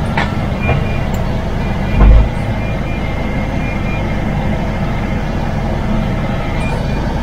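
MAN TGX truck running steadily along the road, engine and rolling noise together, with one short, loud low thump about two seconds in.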